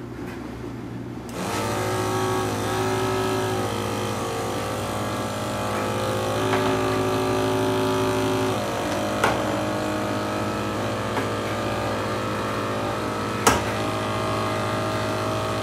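FloJet 2100-987 12-volt sprayer pump switched on about a second in, then running with a steady motor hum whose tone shifts a few times. It is not picking up water, which the owner takes for a foot valve stuck shut. Two sharp clicks come later, the second the louder.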